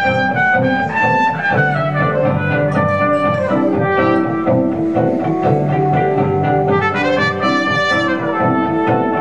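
Trumpet playing an improvised jazz melody of changing held notes over guitar chords.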